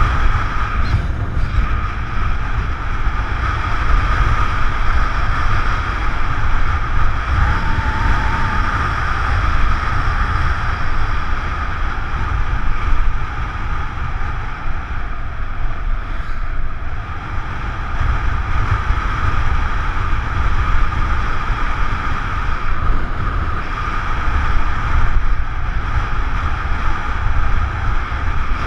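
Wind rushing over a GoPro's microphone on a moving motorbike, with the motorbike's engine running steadily beneath it.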